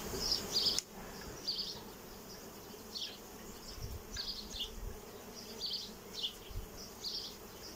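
Honeybees buzzing around an opened hive, with short high-pitched rasps coming and going every second or so.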